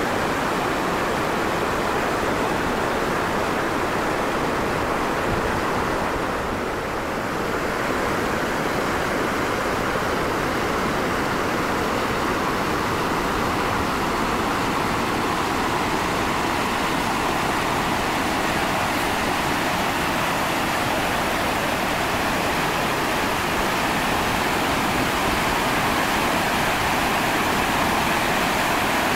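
Waterfall on the Yellowstone River, heard from close by at its brink: a steady, loud rush of falling water.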